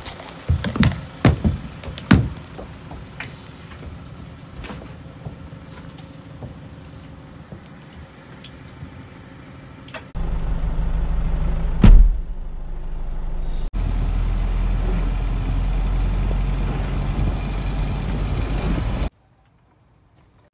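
A horse's hooves clomping up a horsebox ramp in the first couple of seconds. Then, about ten seconds in, the horsebox's engine running with a steady low rumble, heard from inside the lorry, with one loud knock about twelve seconds in. The sound cuts off suddenly near the end.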